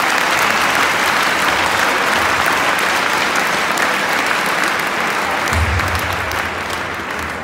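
Large arena crowd applauding steadily, easing off slightly toward the end; a low rumble joins about five and a half seconds in.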